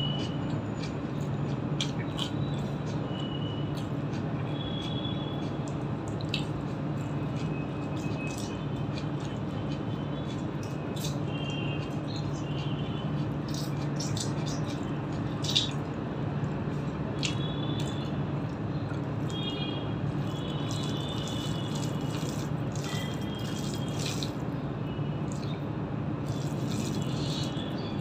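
Wet clicking and squishing of fingers mixing rice and curry on a steel plate, along with chewing, in many small scattered clicks over a steady low hum.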